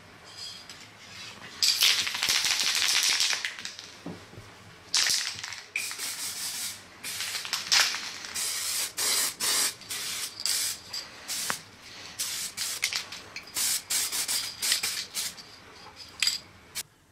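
Aerosol can of 2K clear coat spraying, with one longer burst about two seconds in and then many short bursts, the hiss starting and stopping repeatedly.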